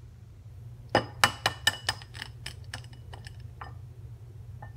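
An egg being tapped against the rim of a drinking glass to crack it: a quick run of sharp clinks about a second in, then a few fainter ticks.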